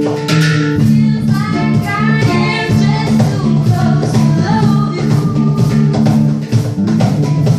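Ambient music: melodic hang drum tones over sustained bass notes and steady percussion strikes.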